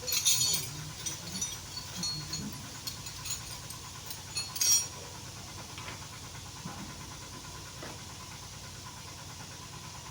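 Small metal clicks and scrapes of a bolt and hand tools being fitted to the Activa scooter's footrest, sharpest about half a second in and just before five seconds in, one with a brief metallic ring. Then only a faint steady hum.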